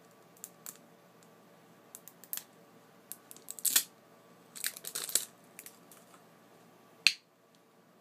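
Protective plastic foil being peeled and torn off a hand cream tube, scattered crinkles and small clicks as it is handled, then one sharp click about seven seconds in as the tube is opened.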